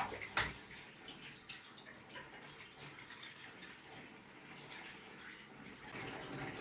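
Water splashing and trickling inside an iHunt 3 kg mini automatic washing machine during its cycle, with a sharp knock just under half a second in. The water sound gets a little louder about six seconds in.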